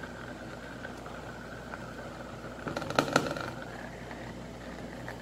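Handheld immersion blender running steadily in a thick gel-cream, a constant motor whir, with a brief clatter of sharp knocks about three seconds in.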